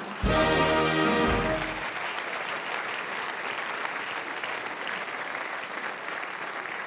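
A band sounds a short held chord, a carnival tusch after a punchline, lasting under two seconds. The audience applauds through it and then keeps clapping steadily.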